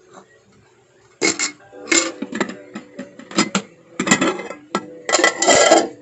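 Metal kitchenware clattering: a spatula and pot lid knocking against a frying pan and a plate in a series of sharp clanks with short ringing, starting about a second in.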